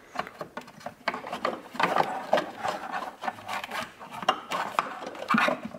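The BMW 340i's oil filter cap, with a new cartridge in it, being put back into its housing and screwed down by hand: irregular plastic rubbing and scraping with small clicks.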